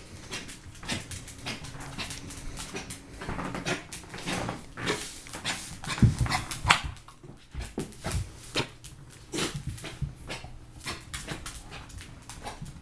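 Dog coughing over and over in short, irregular bursts, loudest about six to seven seconds in; a cough whose cause the owners cannot explain.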